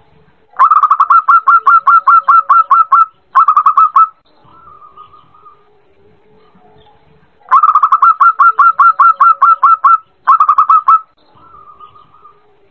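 Zebra dove song: a loud, rapid run of staccato cooing notes, about five a second for some two and a half seconds, then a short burst of the same notes. The whole phrase comes twice, starting near the beginning and again past the middle. Fainter, lower cooing lies between the phrases.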